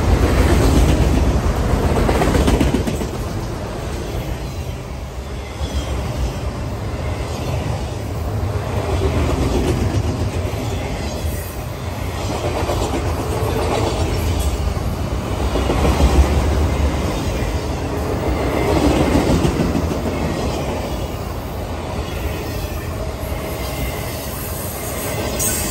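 Freight train of enclosed autorack cars rolling past close by: steady rumble and clatter of steel wheels over the rails, swelling and fading every few seconds as the cars go by.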